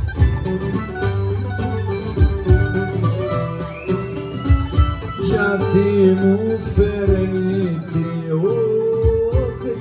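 Cretan folk music: a lyra plays a sliding melody over strummed laouto and mandolin accompaniment.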